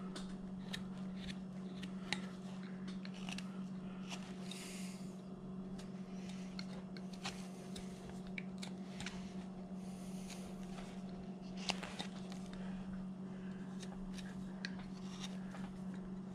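Carving knife slicing into a hand-held wooden figure: scattered small clicks and short scraping cuts as chips come away, one longer slicing scrape about four and a half seconds in. A steady low hum runs underneath.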